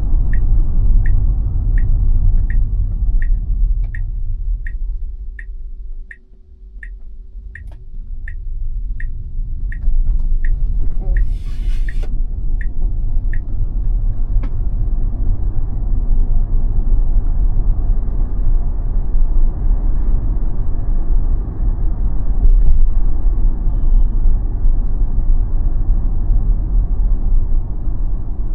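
Turn-signal ticking, about two a second, over tyre and road rumble inside a Tesla's cabin. The rumble fades for a few seconds as the car slows for a right turn and comes back as it speeds up; a brief hiss sounds about eleven seconds in, and the ticking stops soon after.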